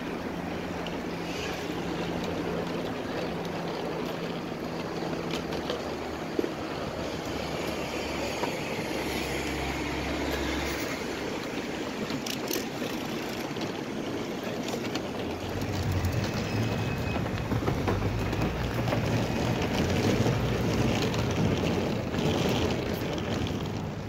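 City street traffic noise, steady, with a deeper engine rumble building up about two-thirds of the way through.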